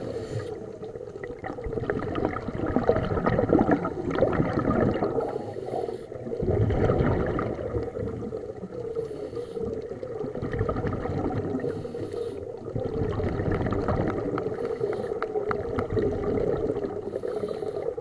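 Scuba divers' exhaled bubbles gurgling and regulator breathing, heard underwater through the camera housing. The bubbling swells in surges every few seconds with each breath.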